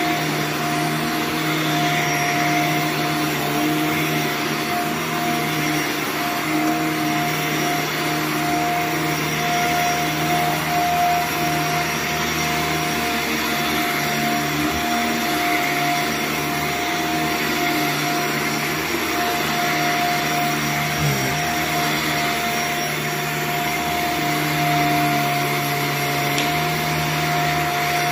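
Vacuum motor of rug-cleaning equipment running steadily, a constant hum and whine over a rushing of air, with one brief dip in pitch about three-quarters of the way through.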